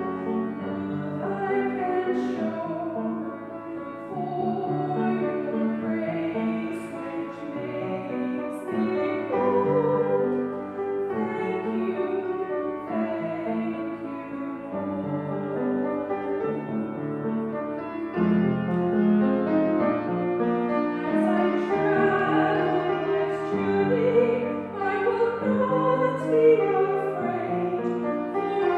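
A woman singing a solo with piano accompaniment, her voice holding long notes with vibrato over sustained chords.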